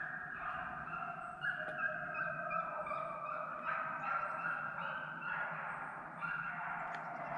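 A pack of deer hounds baying on a chase, several dogs giving long, overlapping drawn-out cries.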